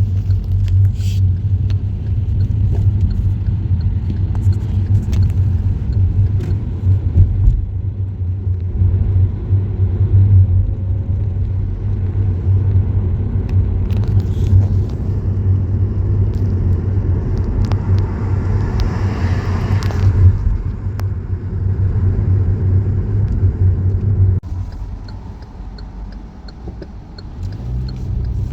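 Car driving, with a steady low road and engine rumble. A brief rushing hiss comes about two-thirds of the way in, and the rumble eases for a few seconds near the end before building again.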